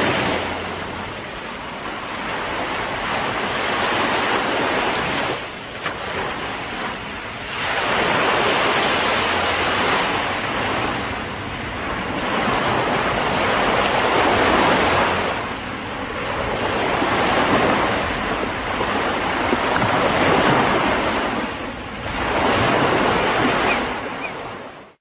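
Ocean waves breaking and washing back, the surf swelling and fading every three seconds or so, then cutting off abruptly at the very end.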